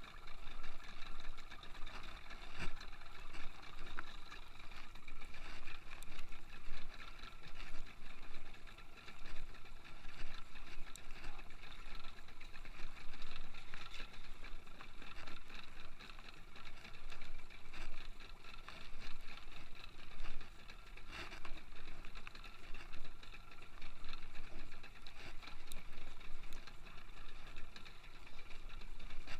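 Fishing boat's engine running steadily under way, with rushing water noise that swells and fades about once a second.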